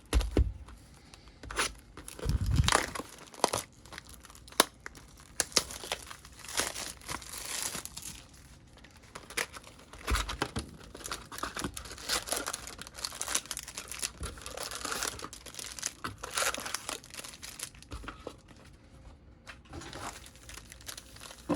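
Thin plastic packaging, such as a pack of penny card sleeves, crinkling and tearing in irregular bursts as it is handled, with scattered clicks and a few dull knocks.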